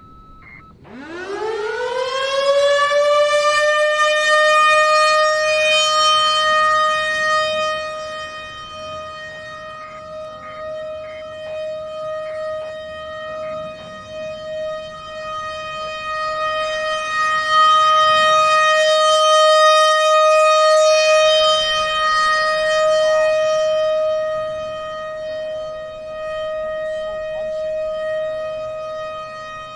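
ACA PN-20 outdoor warning siren winding up and sounding its steady Alert tone: the pitch rises quickly about a second in, then holds one steady wail. Its loudness swells and fades twice as the rotating siren head sweeps toward and away from the listener.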